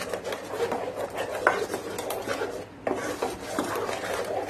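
Metal spoon stirring a thick mango-pulp and cornflour mixture in a non-stick pan: a continuous wet scraping with small ticks of the spoon against the pan, easing off briefly about two and a half seconds in.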